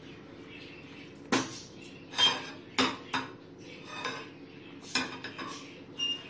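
Metal clinks and knocks of a flat metal tawa being handled on a gas stove's burner grate as oil is spread across it, about seven irregular strikes, some with a brief high ring.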